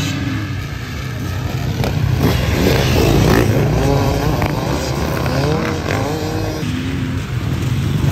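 Several dirt bikes revving hard together on a snow race track, their engine notes rising and falling over one another. They get louder about two seconds in.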